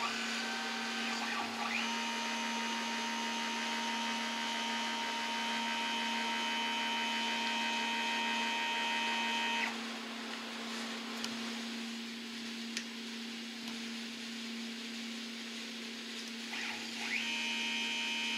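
Home-made CNC mill running a chamber-fluting program, scraping a flute into a rifle barrel's chamber with a thin high-speed-steel cutter: a steady high motor whine over a low steady hum. The whine stops about ten seconds in, a couple of light ticks follow, and it starts again with a short rise near the end.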